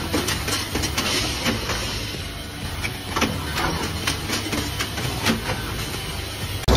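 Automated machine working wooden drumsticks held in metal fixtures, running with a rapid, irregular clatter of clicks and knocks over a steady mechanical hum.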